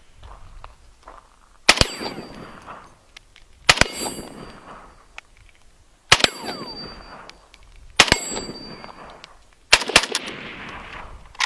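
Unsuppressed 7.62×39 rifle fired five times, about two seconds apart, each shot followed by a ringing tail.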